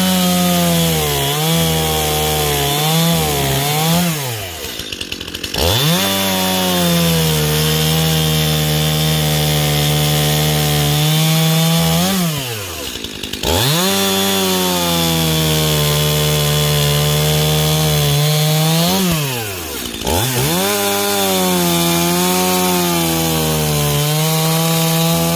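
Stihl MS 271 two-stroke chainsaw cutting through wood at full throttle, the engine note sagging slightly as the chain bites. It drops back to idle and revs up again three times, about four, twelve and nineteen seconds in, between four cuts.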